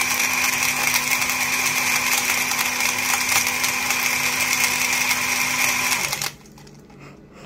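BlendJet 2 portable blender running with a steady motor whir as it blends a drink with frozen fruit pieces, then cutting off about six seconds in.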